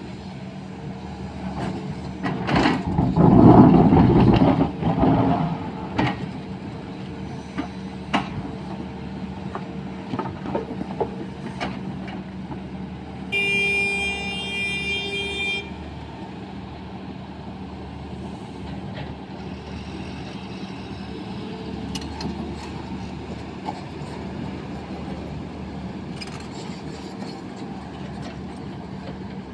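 Sany hydraulic excavator's diesel engine running steadily while loading, with a loud rumbling burst about three seconds in. A horn sounds once for about two seconds near the middle.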